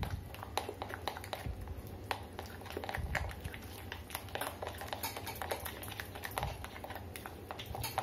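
Spoon beating thick flour-and-egg batter in a glass bowl: a quick, irregular run of small clicks and scrapes as the spoon strikes and drags against the glass.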